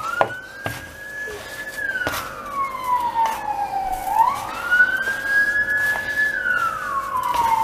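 An emergency vehicle siren wailing, its pitch slowly rising, holding and falling twice. Faint scraping clicks come from hands mixing dry bulgur in a metal tray.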